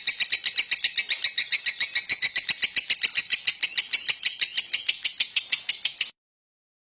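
Lovebird singing its long trilling 'ngekek' song: a fast, even string of high chirps, about eight or nine a second, that cuts off suddenly about six seconds in.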